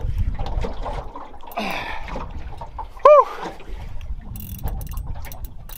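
Spinning reel working under the load of a hooked giant trevally, over a low rumble of wind and water. A short, loud high squeal rises and falls about three seconds in, and a run of quick clicks comes near the end.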